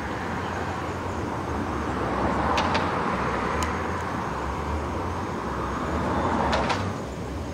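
Road traffic: a steady low engine hum with vehicles passing by, swelling twice, about two seconds in and again near the end, with a few short sharp clicks.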